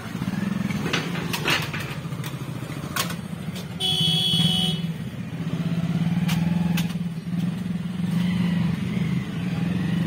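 KTM RC 200 motorcycle's single-cylinder engine running at idle, swelling now and then with light throttle. A short beep, about a second long, sounds about four seconds in.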